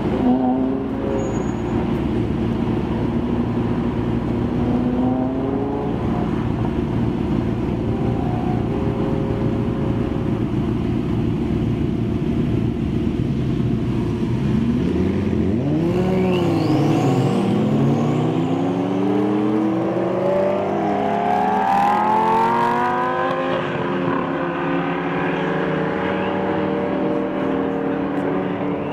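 A group of supercars, Lamborghinis among them, idling at a traffic light with a deep, steady engine rumble. About halfway through they pull away hard: several engines rev up in rising pitch, dropping at each gear change and overlapping one another, then settle into a steadier drone as the cars move off.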